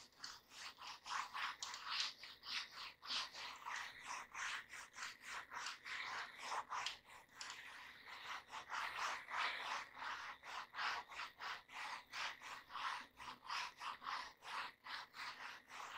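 Whiteboard duster scrubbing back and forth across a whiteboard, wiping off marker writing, in quick rubbing strokes about three a second.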